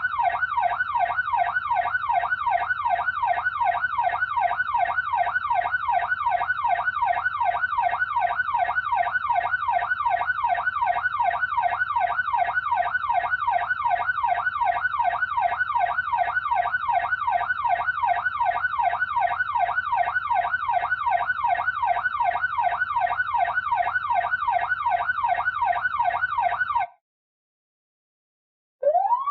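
Electronic police siren sounding a rapid yelp, its pitch sweeping up and down several times a second. It cuts off abruptly near the end, and after a brief silence another siren begins with a rising wail.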